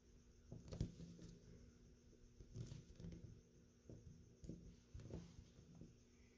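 Faint scraping and light clicks of a screwdriver blade turning the steel locking bolt spring screw out of an SMLE Mk III* rifle's action, in short separate strokes.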